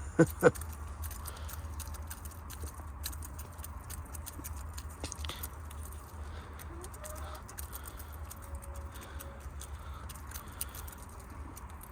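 Hens pecking seed, a patter of small irregular clicks, with a couple of short hen calls right at the start. Wind rumbles on the microphone throughout.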